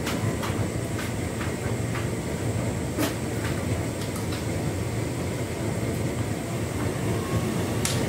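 Hotpoint Ultima S-Line tumble dryer running a full load on its distribution cycle: a steady low hum and rumble from the turning drum, with scattered light clicks.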